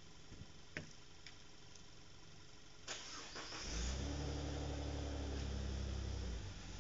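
A motor starts with a sudden hiss, then runs with a steady low hum for about three seconds before its pitch sags and it stops. A few faint clicks come before it.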